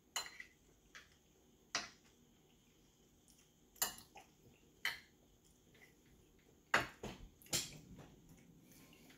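A metal fork clinking against a ceramic plate while potato salad is eaten: about seven sharp, irregularly spaced clinks, the loudest in the last few seconds.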